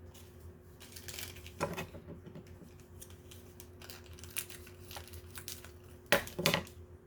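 Plastic packaging crinkling and rustling as small doll accessories are unwrapped by hand, with two sharper crackles close together near the end.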